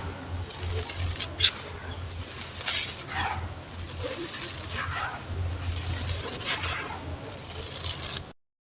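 Dry, gritty sand-cement crumbling with irregular crunches and crackles, one sharp crack a little over a second in. The sound cuts off abruptly near the end.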